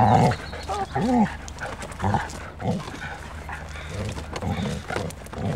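A border collie making short vocal sounds as it tugs a wheelchair along by a strap in its mouth.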